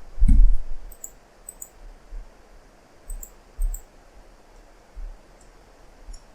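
Scattered clicks of a computer mouse and keyboard, several in quick pairs, with a soft low thump just after the start.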